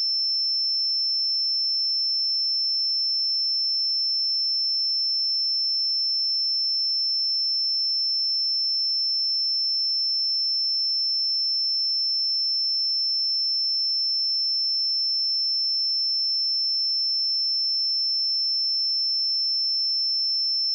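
Steady pure sine-wave test tone at 5331 Hz, a single high-pitched whistle-like tone held at constant level.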